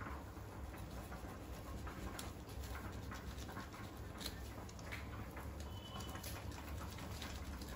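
Knife scraping scales off a whole fish: faint, scattered scratches and ticks over a steady low hum.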